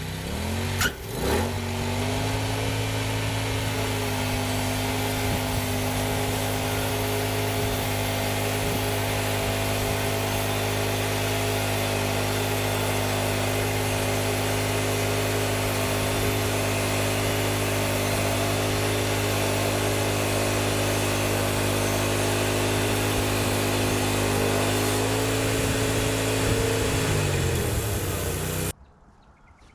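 TimberKing portable bandsaw mill's gas engine revving up and running at a steady high speed through a cut, then slowing in pitch and stopping near the end.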